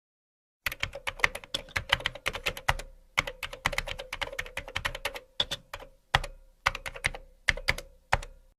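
Rapid keyboard typing: quick runs of clicks that start about a second in, with brief pauses between runs toward the end, over a faint steady hum.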